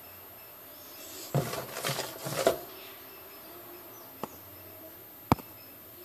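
A hand wiping and scraping the plastic floor of a twin-tub washing machine's spin tub to clear out lint and debris: a burst of rubbing and scraping sounds for about a second and a half. This is followed by a faint click and then a sharp click near the end.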